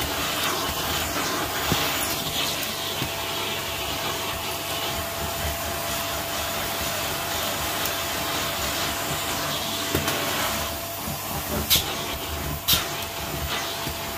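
Vacuum cleaner running with its bare hose wand moved over carpet: a steady rush of suction with a thin, steady motor whine. Two sharp clicks sound about a second apart near the end.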